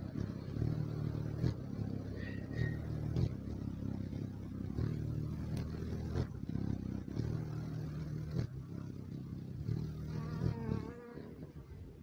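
A hummingbird's wings hum as it hovers at a nectar feeder. The low buzz swells and fades in stretches as the bird moves, then dies away shortly before the end. A few brief, high, wavering chirps come near the end.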